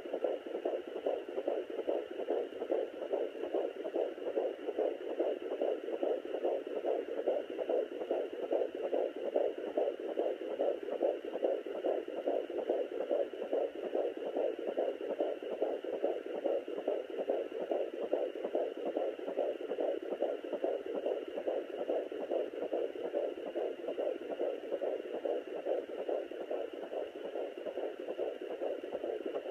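Fetal heartbeat at 16 weeks picked up by a Sonoline B handheld fetal Doppler: a fast, even pulse through the Doppler's speaker.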